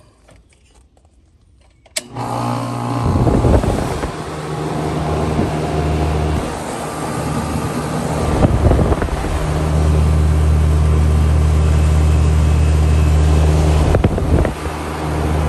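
An air conditioner starting up: a sharp click about two seconds in, then a low hum that builds up and settles into a steady, loud run, getting stronger about halfway through.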